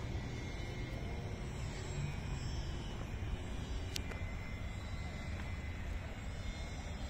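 Steady low rumble of outdoor background noise, with one faint sharp click about four seconds in.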